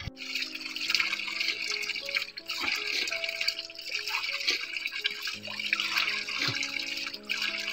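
Cold spring water running from a small spout and splashing onto rocks and a shallow pool, a steady rushing hiss, with background music of sustained notes underneath.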